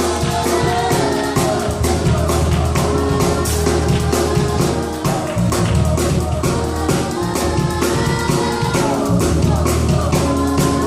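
Church youth choir singing a gospel song with a live band: steady drum beats, a bass line and held chords under the voices.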